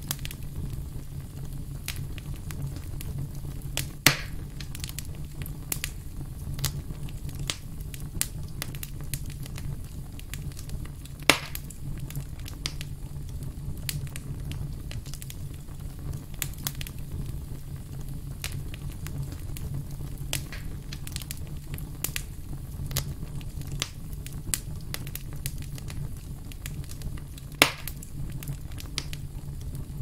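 Wood campfire burning: frequent small crackles of the logs over a low, steady rumble, with three louder pops about four seconds in, about eleven seconds in, and near the end.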